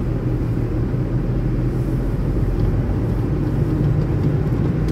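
Semi-truck's diesel engine running, heard from inside the cab as a steady low rumble; its pitch climbs a little about three and a half seconds in as the truck pulls through the right turn.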